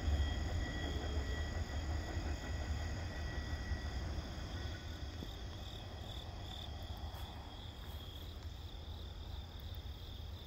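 Crickets and other insects trilling steadily in a high, even chorus over a low rumble from a departing freight train that slowly fades away.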